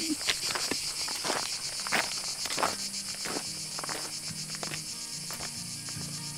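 Cicadas buzzing steadily in a shrill, pulsing chorus, with footsteps on a stony path in the first few seconds.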